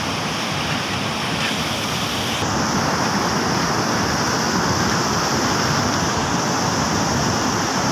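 Fast mountain stream rushing over boulders: a steady, even roar of water, shifting slightly in tone about two and a half seconds in.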